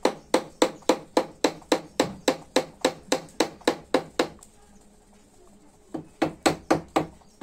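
A hand hammer tapping in quick, even strokes, about three or four a second, then a pause of about a second and a half and another short run of taps near the end.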